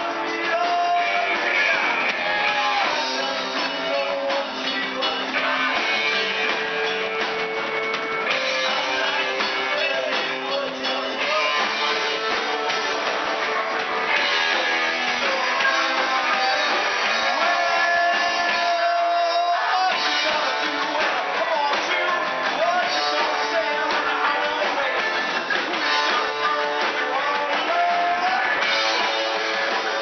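Live rock band playing: electric guitars and drums with a singer, heard thinly with little bass.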